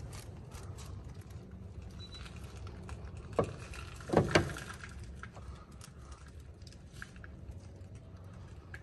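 Metal knocks as the splined inner stub of an Arctic Cat ATV's CV half-axle is worked into the front differential. There is one sharp knock about three and a half seconds in, then a louder double knock just after, among scattered faint clicks.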